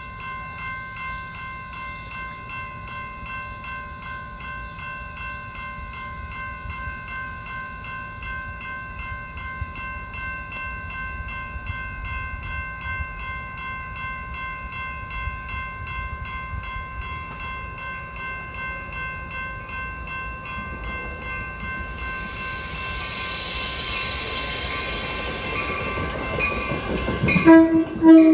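Railroad grade-crossing warning bell ringing steadily in even, rapid strokes. From about two-thirds of the way in, an approaching train's rumble and rail noise grow, and a loud train horn blast sounds near the end.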